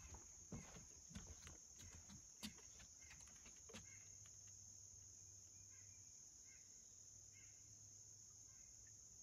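Faint, steady high-pitched drone of insects in the woods. Irregular soft footsteps on the trail during the first few seconds, then a few faint chirps.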